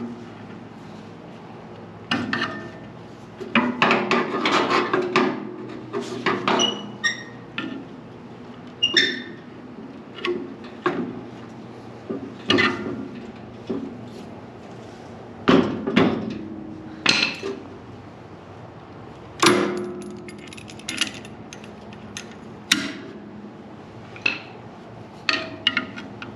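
Hand tools knocking and clinking on metal parts of a sawmill head. The strikes come at irregular intervals, some ringing briefly, with a denser run of clatter about four seconds in.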